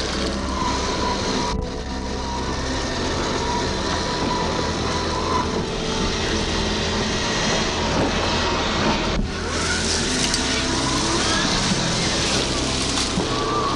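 Traxxas TRX-4 scale RC crawler driving, its electric motor and geartrain whirring along with tyre noise over dirt and then loose gravel. The sound breaks off briefly twice, about a second and a half and nine seconds in.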